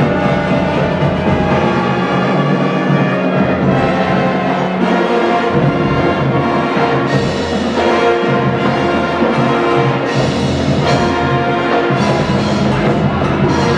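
High school marching band playing live: sustained brass chords over timpani and percussion, with the harmony shifting a few times.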